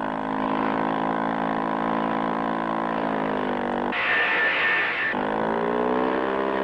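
Cartoon background music: a low, reedy held note that sags in pitch a few seconds in and slides back up, with a higher held note joining briefly around the middle.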